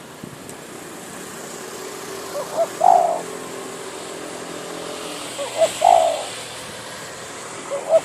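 Spotted dove, a trained decoy bird, cooing. Each call is a few short notes leading into a longer, louder coo, repeated about every three seconds, over a faint steady hum.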